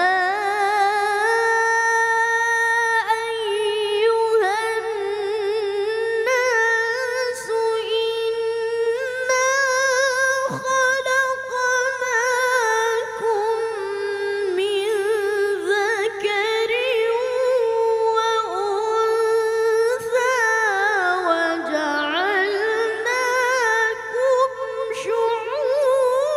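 A boy's high voice reciting the Quran in melodic tilawah style, drawing out long held notes with quick wavering ornaments that slide between pitches.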